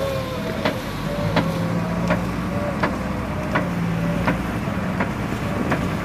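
Snake-boat crew rowing in unison: sharp knocks about every three-quarters of a second mark each paddle stroke, with a short gliding call between them. A steady engine hum runs underneath, growing stronger about a second in.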